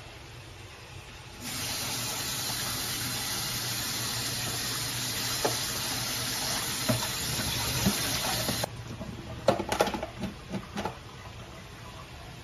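Kitchen tap running into a stainless steel sink as green grapes are rinsed in a plastic colander. The water comes on about a second and a half in and is shut off sharply after about seven seconds, followed by a few light knocks and clicks.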